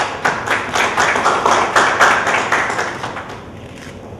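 Audience applauding, a patter of hand clapping that swells and then dies away about three seconds in.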